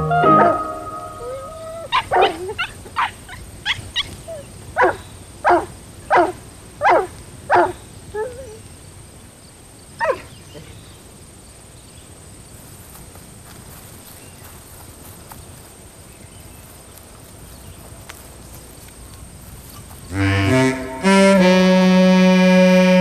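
A dog barking, about a dozen short barks in quick succession, with one more after a short pause; then a quiet stretch, and music with a keyboard comes in near the end.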